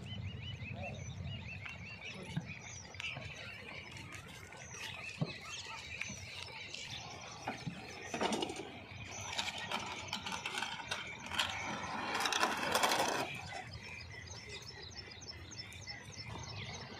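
A wooden hand cart carrying a diesel pump set being pushed and pulled over a dirt track, its wheels and frame creaking and rattling with scattered knocks and two louder scraping rushes around the middle. Birds chirp throughout.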